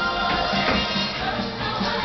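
Upbeat parade music with a steady beat.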